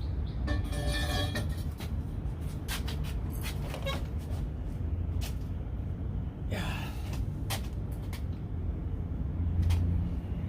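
Heavy steel hand tools (a one-inch breaker bar, socket and extension pipe) clinking and knocking, with a ringing metallic clink near the start and a brief falling screech about six and a half seconds in, over a steady low hum.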